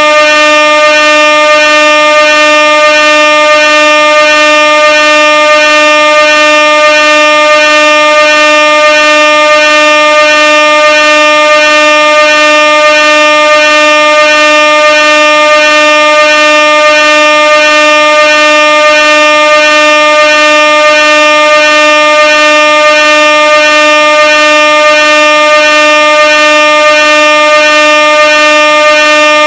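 Air horn sound effect: one continuous, very loud blast held at a single steady pitch without a break.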